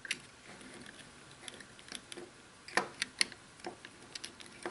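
Light plastic clicks and taps from a wireless hitch camera's housing as its battery cover and gasket are pressed back into place by hand, with two sharper clicks about three seconds in.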